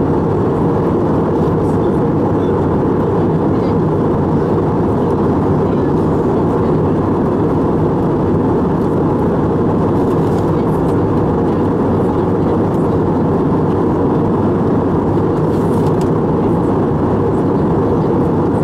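Steady cabin noise of an airliner in flight, engine and airflow noise heard from a window seat, even and unchanging and heaviest in the low range.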